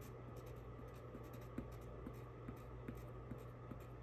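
Coloured pencil scratching faintly on paper in quick, short, repeated strokes, shading in fur.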